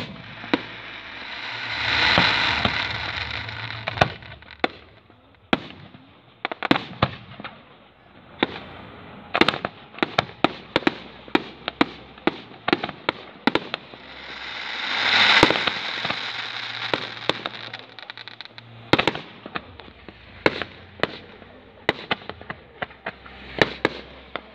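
Fireworks display: a quick series of sharp bangs from shells bursting. Two longer swells of hissing noise build and fade, about two seconds in and again about fifteen seconds in.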